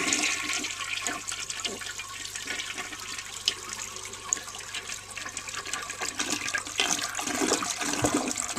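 1952 Eljer Duplex toilet flushing: water rushing steadily through the bowl, with stronger low surges near the end.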